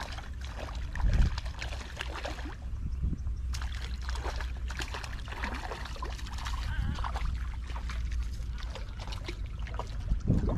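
A hooked fish splashing and thrashing at the water's surface in irregular bursts as it is played on a long hand pole, with a louder low thump about a second in and a steady low rumble beneath.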